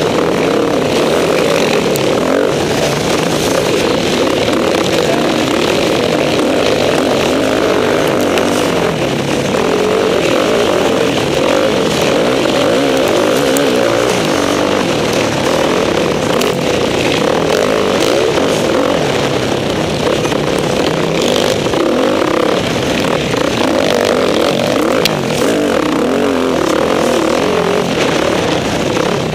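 Motocross bike engine running hard and steady, close to an on-board camera, with other dirt bikes racing alongside in a pack.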